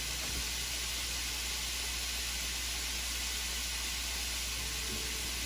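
Mixed vegetables sizzling steadily in hot canola oil in a stainless steel skillet, an even hiss.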